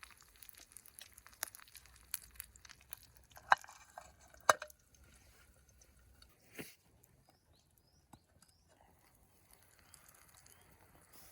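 Scattered light clicks and crackles from handling camp cooking gear while seasoning eggs, with two sharp clicks about a second apart near the middle and a softer knock a couple of seconds later. Faint high bird chirps follow in the quieter second half.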